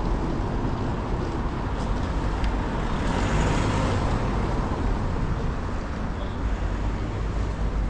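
City street traffic: a steady low rumble of road noise, with a car passing close by about three to four seconds in.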